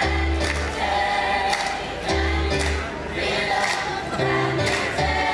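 A group of voices singing a pantomime show song together to musical accompaniment, with a bass line and steady cymbal ticks.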